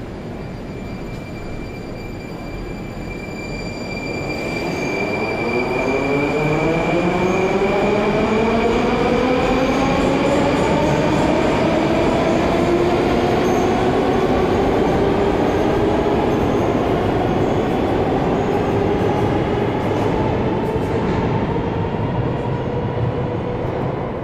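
Moscow metro train pulling away from the platform: the whine of its electric traction motors climbs in pitch as it gains speed, then levels off and fades near the end. A thin, steady high tone sounds through the first half.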